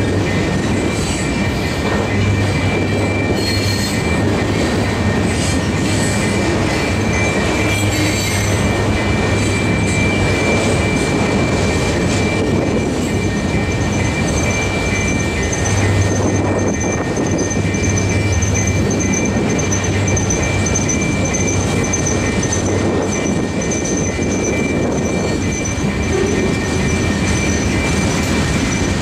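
Freight train cars rolling past: a steady rumble of steel wheels on the rails, with a thin, high-pitched wheel squeal held over it.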